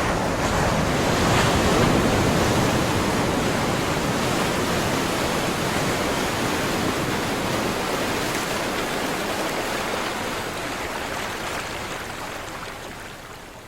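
Sea surf: waves breaking and washing up in a steady rush, swelling about two seconds in and fading out near the end.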